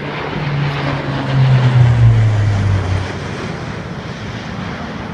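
Four-engine turboprop transport plane making a low pass overhead: its propeller drone grows loudest about two seconds in, the pitch dropping as it goes by, then fades away.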